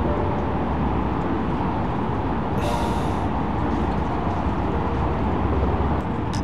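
Steady low rumble of road traffic, with a short hiss about three seconds in.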